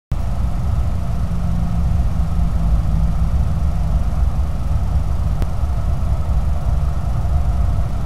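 Steady low rumble with a fainter hum higher up and no distinct events, apart from one faint tick about five and a half seconds in.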